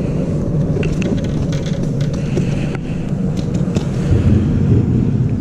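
Steady low rumble of wind buffeting the microphone, with a few faint light ticks.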